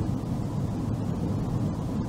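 Steady low rumble of a car driving on a paved road: tyre and engine noise heard from inside the car.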